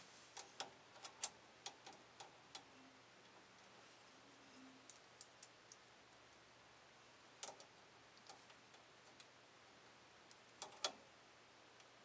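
Faint, sharp clicks of small metal parts being handled as a piercing line-tap valve is clamped around a copper refrigerant line. A quick run of clicks comes in the first couple of seconds and the loudest click comes near the end.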